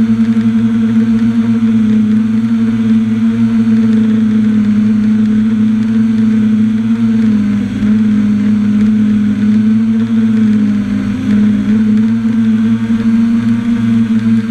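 Electric motors and propellers of a camera drone in flight, a loud steady hum whose pitch sags briefly about halfway through and comes back up as the motor speed changes.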